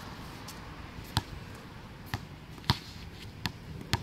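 Basketball bouncing on a hard outdoor court: five sharp bounces at uneven spacing, the ball coming down after a shot and then being dribbled.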